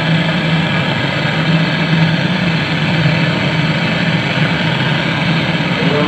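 Gas brazing torch burning steadily, a constant rushing flame noise with a low hum, as it heats a copper refrigerant pipe joint on a refrigerator condenser for brazing.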